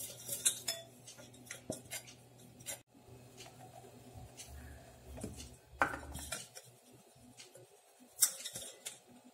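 Stainless steel vessel being handled and dusted with flour, giving scattered sharp metallic clinks and knocks against the counter and other utensils, the loudest about six seconds in and just after eight seconds in.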